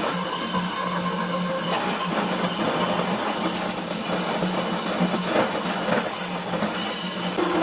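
A machine running steadily with a constant low hum, with scraping noise and a couple of sharp knocks about two-thirds of the way through.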